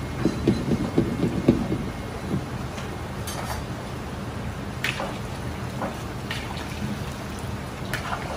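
Breaded chicken pieces deep-frying in a large wok of hot oil: a steady sizzling crackle over a low constant rumble. The crackling is loudest in the first second or so, and a few sharp clicks come later.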